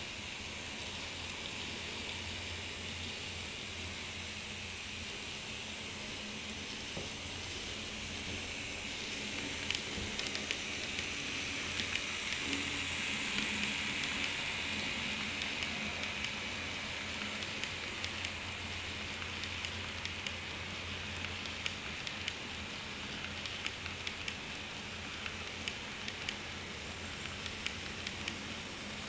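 N scale model passenger train, pulled by a pair of SD24 diesel models, rolling past on the track. Its motors and wheels make a steady whirring hiss that grows louder about ten seconds in as the locomotives pass closest, with rapid irregular ticks of the wheels over the rail joints.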